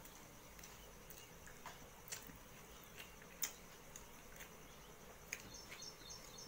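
Faint scattered clicks and crackles of fingers mixing rice and crisp fried potato shreds on a steel plate, with a sharper tick about three and a half seconds in.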